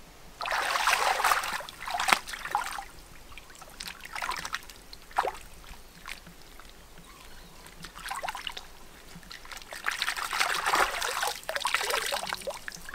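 Hands rinsing a clump of mushrooms in shallow river water, in several bursts of sloshing and splashing, with water trickling and pouring back down as the clump is squeezed.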